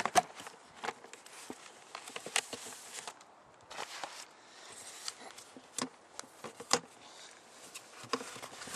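Scattered clicks and knocks from handling a curbside mailbox, as its door is opened and a hand reaches inside, over a faint hiss.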